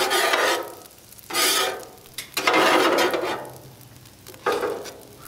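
Metal spatulas scraping across a steel flat-top griddle while tossing fried rice with pork belly: four scraping strokes, the third the longest.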